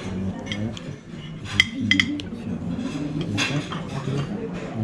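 Serving cutlery clinking against porcelain plates and a serving dish as a meal is plated, with a few sharp clinks close together about one and a half to two seconds in.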